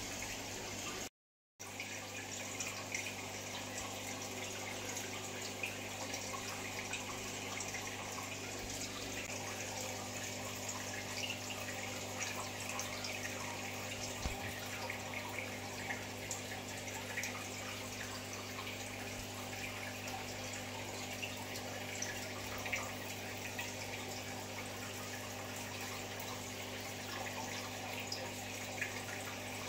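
Steady water trickling and bubbling in an aquarium, with a low steady hum and faint scattered ticks; the sound cuts out briefly about a second in.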